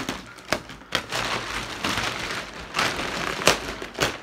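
Plastic wrapping on a mattress crinkling and crackling as it is pulled open by hand, with several sharp snaps along the way.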